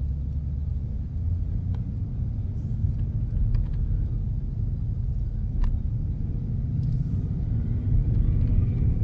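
Ford Mustang GT's V8 heard from inside the cabin while driving at low revs, a steady low rumble through the stock exhaust with no H-pipe fitted yet. The engine is still cold.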